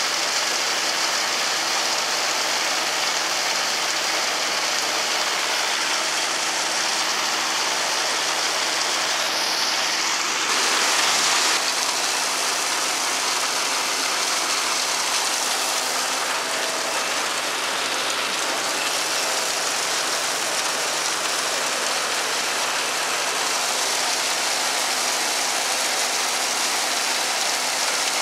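Silage blower running while a forage wagon unloads chopped corn silage into its hopper: a steady machine hum under a dense hiss of silage pouring and being blown. It gets briefly louder about ten seconds in.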